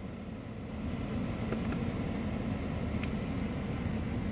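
Power-folding side mirror motors of a Mercedes-Benz S560 running, a steady low whir heard from inside the cabin through the closed side window.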